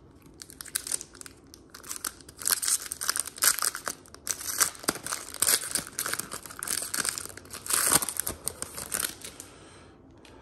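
Foil wrapper of a Panini Recon basketball card pack being torn open and crinkled by hand. The dense crackling starts about two seconds in, after a few soft handling sounds, and stops about a second before the end.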